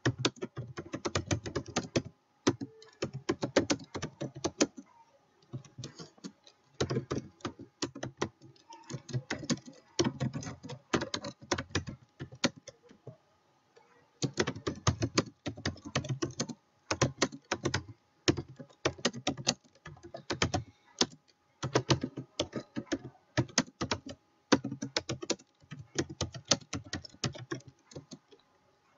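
Computer keyboard being typed on in quick runs of keystrokes, broken by short pauses of a second or two.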